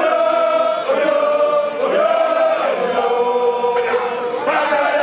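A group of voices chanting together in long held notes that glide between pitches, with one note held steady through the second half.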